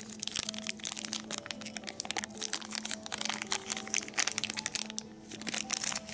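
Foil blind-bag pin pouch crinkling and crackling as fingers pinch and pull it open, a quick run of small crackles.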